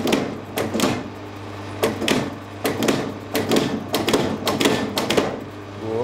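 Power hammer striking red-hot steel, rounding the end of a sword's crossguard bar. Short bursts of a few rapid blows with brief pauses between, over the steady hum of the hammer's motor.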